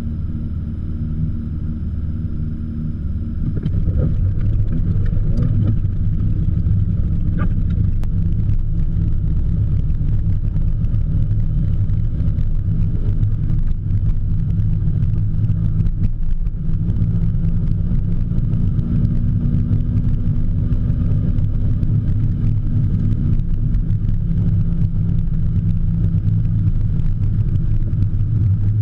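BMW M3 E30's four-cylinder engine running at low revs, heard from inside the cabin while the car rolls slowly. It picks up slightly a few seconds in, then holds steady.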